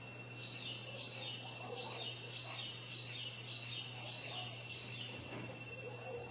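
A bird calling: a run of short, high chirps, each falling in pitch, about two to three a second, stopping about five seconds in.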